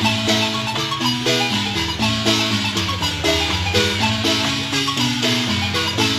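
A wooden marimba played by three players with mallets, performing a son: quick melody notes over a steady low bass part.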